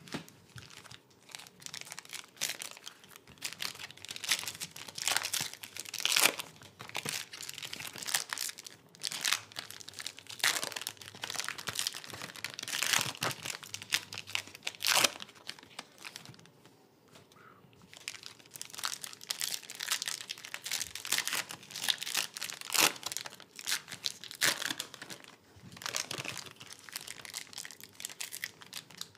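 Trading card pack wrappers being torn open and crinkled by hand: irregular crackling and tearing bursts, with a quieter lull about halfway through.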